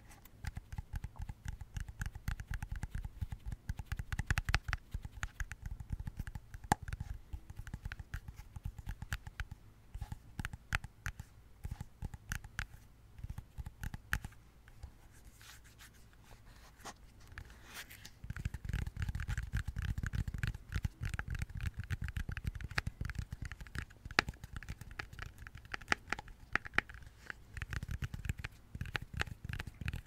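Rapid tapping on plastic: a dense run of small clicks, lighter for a few seconds around the middle and busier in the second half.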